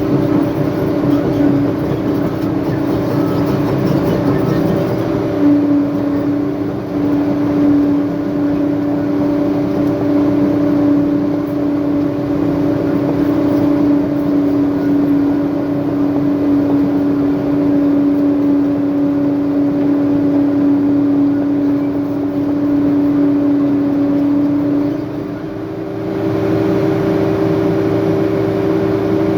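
Diesel engine of a heavy earthmoving machine running steadily with a constant droning tone; the sound dips briefly about 25 seconds in and the pitch then shifts.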